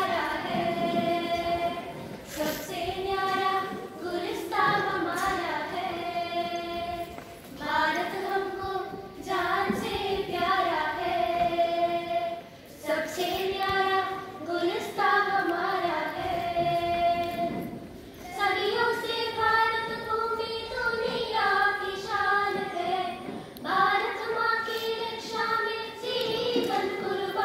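A group of girls singing together in unison, holding notes in phrases of a few seconds with short breaks between them.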